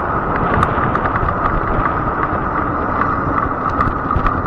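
Fat-tire e-bike riding along: a steady motor whine over wind on the microphone and tyre rumble, with scattered light clicks and rattles.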